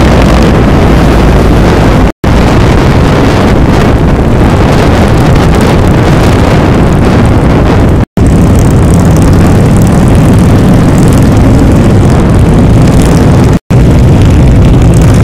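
Motorcycles running under way on a group ride, their engine note mixed with heavy wind noise on the microphone. The sound drops out briefly three times, at edit cuts.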